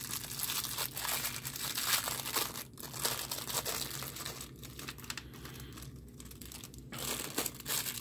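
A small clear plastic bag crinkling as it is torn and pulled open by hand, the crackle coming and going with short pauses.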